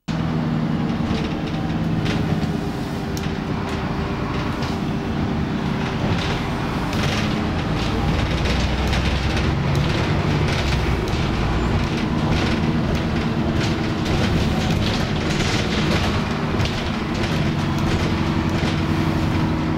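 Interior noise on the upper deck of a moving double-decker bus: the engine's steady drone with frequent rattles and knocks from the body and fittings.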